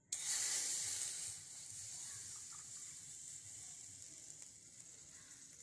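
Water poured into a hot miniature steel pot over a wood fire, hissing and sizzling as it hits the hot metal. The hiss starts suddenly, is loudest for about the first second, then settles into a steady sizzle that slowly fades.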